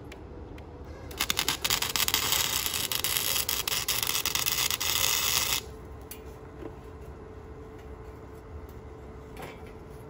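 Wire-feed (MIG) welder laying a weld for about four seconds: a loud, crackling hiss that starts about a second in and cuts off suddenly. A faint steady hum runs under it throughout.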